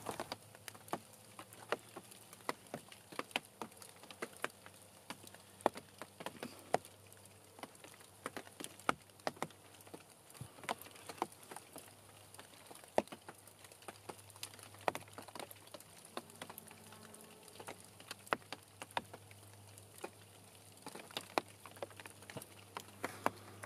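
Sleet falling on dry leaves and the forest floor, sparse irregular ticks and taps a few times a second.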